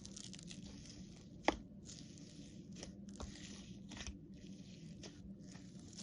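Slime being squeezed and stretched, crackling in repeated strokes of about half a second to a second each, with one sharp pop about a second and a half in.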